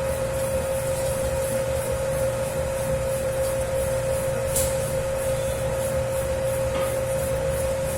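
Electric dough kneading machine running with a 10 kg batch of pizza dough: a steady motor hum and whine under a low rumble, with a regular swishing pulse a couple of times a second as the dough is turned, and one brief sharper sound about halfway through.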